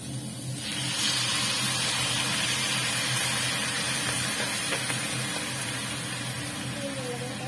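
Soy sauce poured into a hot stainless-steel pan of sautéed chicken gizzards, garlic and onion. It sizzles suddenly and loudly from just under a second in, then slowly eases off.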